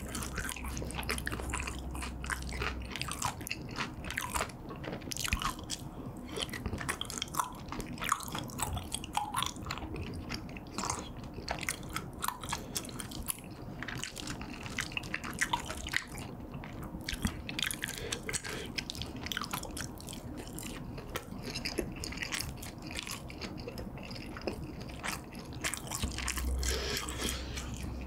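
Close-miked eating sounds: chewing chewy tteokbokki rice cakes in sauce and cheese kimbap, a steady run of small wet smacks and clicks.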